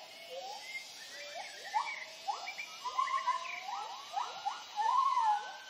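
Gibbons' territorial hooting calls: a chorus of rising whoops, about two a second, mixed with longer held notes from several overlapping voices.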